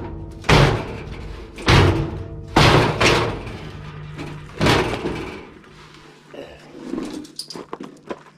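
A series of heavy knocks, five strong ones in the first five seconds, then lighter, quicker knocking, over a steady hum or background music.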